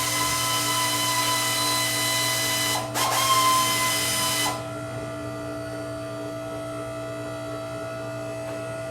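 A power tool whirring steadily with a hiss. It falters briefly about three seconds in and stops about a second and a half later, leaving a quieter steady machine hum.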